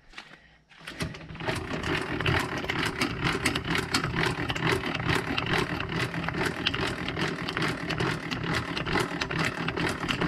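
Trailer A-frame tongue jack being cranked down, starting about a second in: its gears make rapid, even clicking over a steady low hum.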